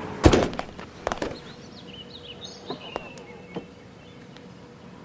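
A dull thump, then a second one about a second later, followed by quiet outdoor background with a few faint chirps.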